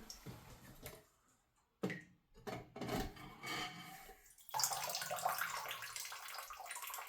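A few plastic clicks and knocks as the new toilet fill valve is twisted to raise its height, then water trickling steadily from about four and a half seconds in.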